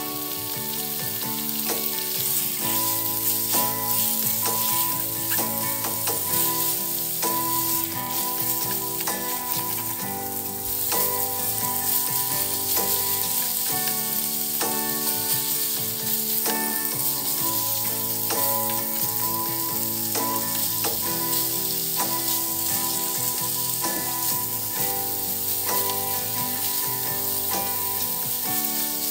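Food frying and sizzling in hot oil, a steady hiss, with background music playing throughout.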